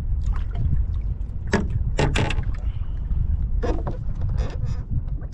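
Wind rumbling on the microphone and water lapping at a fishing boat, with several sharp clattering knocks in the middle as a crappie is lifted aboard in a landing net and handled on the deck.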